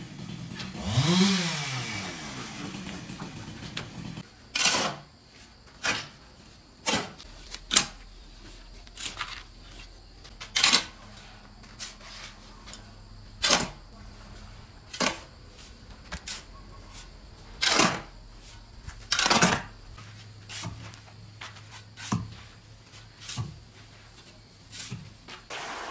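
Steel shovel scraping across a concrete floor and through sand and cement as a dry mortar mix is turned over by hand: about fifteen short scraping strokes at irregular intervals of one to two seconds. About a second in there is a brief hum that rises and falls in pitch.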